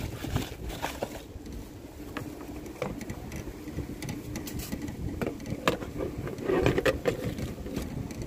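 Handling noise from a fishing rod and reel being lifted out of a cardboard box and bubble wrap and moved among gear in a car boot: scattered clicks, knocks and rustles of cardboard and plastic, with a louder spell of rustling a little past the middle.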